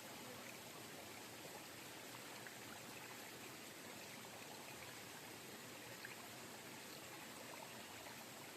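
Faint, steady sound of flowing water.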